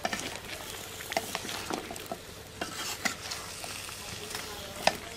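A wooden spatula stirs sliced kohlrabi and potato in a metal karahi, scraping and knocking against the pan over a steady sizzle of frying in oil, with a sharper knock near the end.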